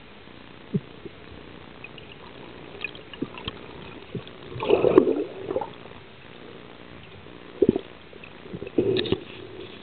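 Underwater recording: a steady low hiss with scattered knocks and clicks, and two swells of bubbling gurgle, one about halfway through and one near the end.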